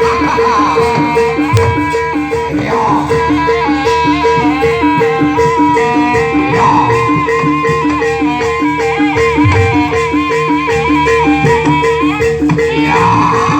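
Indonesian traditional folk music: a reedy wind instrument plays a wavering, ornamented melody over a steady, quick alternation of two pitched percussion tones and drums.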